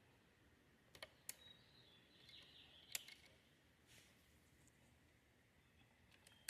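Faint, scattered small plastic clicks and taps, five or so, the loudest about three seconds in: a spare fuse and the fuse box being handled while the fuse is fitted.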